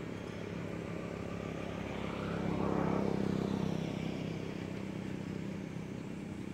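A motor vehicle's engine passing by, growing louder to a peak about three seconds in and then fading, over a steady low engine hum.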